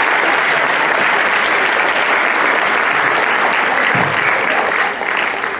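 A large audience applauding and cheering, dense and steady clapping that begins to die down near the end.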